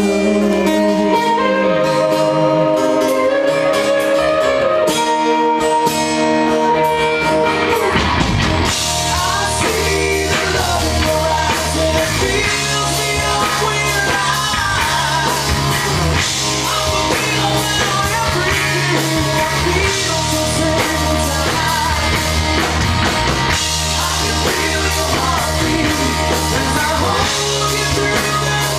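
Live rock band playing. Guitars alone play held, ringing notes for the first eight or so seconds, then the full band comes in with bass and drums, and a male lead vocalist sings over it.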